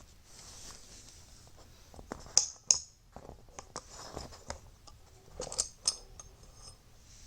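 Small parts of a disassembled seat belt retractor clicking and scraping as they are handled. There are two sharp clicks a little over two seconds in and another pair near six seconds, with light rubbing between.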